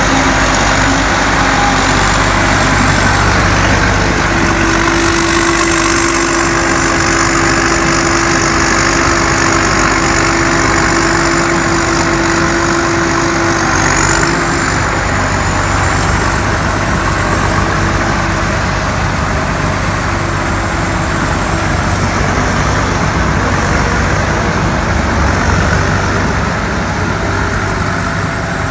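Combine harvester's diesel engine running steadily and loudly, with a high whistle from its blower that wavers slightly in pitch.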